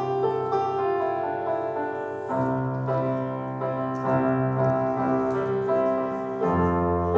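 Stage keyboard played alone for a sound check, holding sustained piano chords over low bass notes and moving to a new chord twice.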